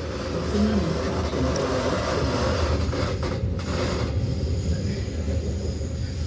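Steady low rumble and hum inside a Metra commuter railcar, with a faint rattle from the car over it.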